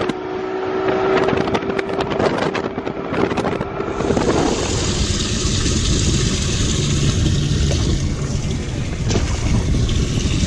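Bass boat running fast on the lake: the outboard motor's steady tone under wind and knocks from the hull and wind on the microphone. About four seconds in it changes abruptly to a steadier hiss with a low hum.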